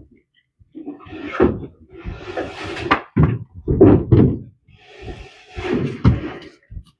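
Irregular knocks, thuds and scraping from heavy scenery pieces being handled and moved during unloading.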